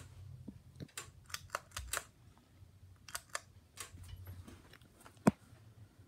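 Handling noise from a tablet held up against a ceiling fan: a string of irregular clicks and taps, with one sharp click about five seconds in, over a low steady hum.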